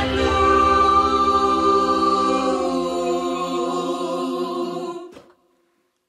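A group of voices singing together, holding a long final chord that slowly fades, then cut off a little after five seconds in.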